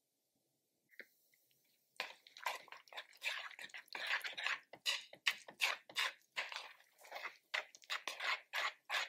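Chopsticks whisking raw eggs into grated zucchini in a wooden bowl: quick, irregular, wet squishing strokes that start about two seconds in.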